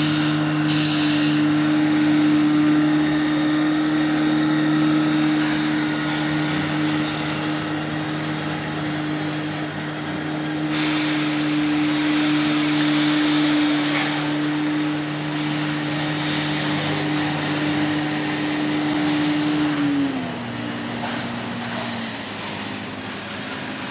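Sawmill machinery running with a steady mechanical hum, which drops to a lower pitch about 20 seconds in.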